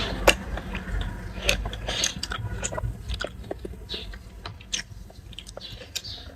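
A person eating instant noodles: soft chewing with many small, irregular clicks and wet mouth sounds.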